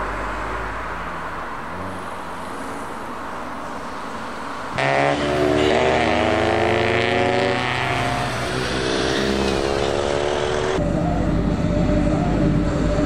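Tuned cars' engines pulling away: a moderate engine and road noise at first, then about five seconds in a much louder engine revving hard, its pitch climbing as it accelerates. Near the end it gives way to a steadier, lower engine note.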